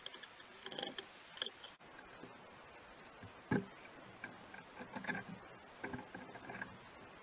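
Steel machine parts clicking and clinking as they are handled and fitted by hand, with one louder knock about halfway through.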